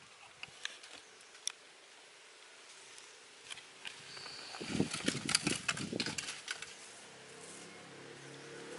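A metal spoon clattering and scraping in a plastic container as a thin shrimp-paste liquid is scooped up, a quick run of clicks lasting about two seconds midway, after a few light taps.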